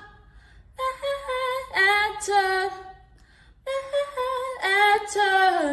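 A woman singing solo and unaccompanied: two drawn-out sung phrases with wavering pitch, with short silent breaths before and between them.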